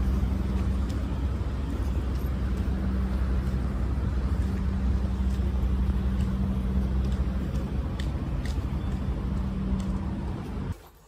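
Steady low hum of idling vehicle engines, with a constant low drone under a wash of traffic noise. It cuts off suddenly near the end.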